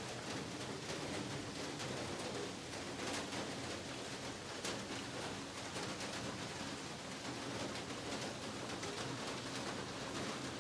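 Heavy rain falling steadily, a dense even hiss with many sharp individual drop hits.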